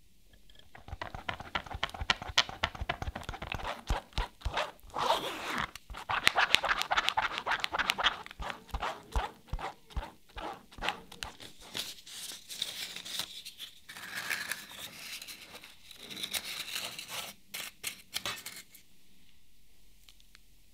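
Thick chocolate cheesecake batter being scraped through a fine metal-mesh sieve: a dense run of raspy scrapes and quick clicks. It starts about a second in and stops about two seconds before the end.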